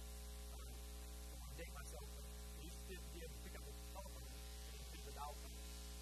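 Steady electrical mains hum on the recording, with a presenter's voice faint and indistinct underneath it.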